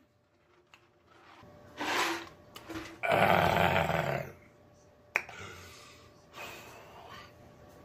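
A man's rough, breathy vocal sound, not words, lasting about a second from about three seconds in, after a shorter breath about two seconds in. Faint mouth noises and a click follow.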